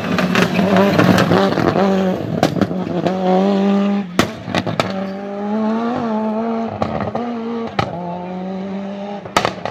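Performance car engine held at a steady, fairly high rev, with a string of loud, sharp exhaust pops and bangs: backfires spread through the whole stretch.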